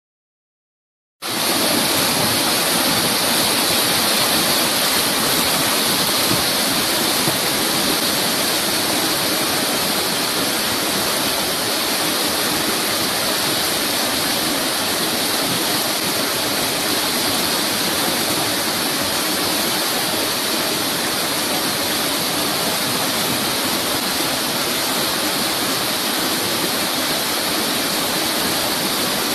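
River rapids rushing over rocks: a steady, even white-water noise that starts suddenly about a second in.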